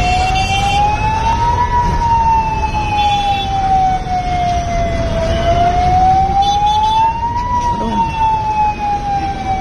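Fire engine siren wailing, its pitch slowly rising and falling in a cycle of about six seconds, over the noise of a crowd.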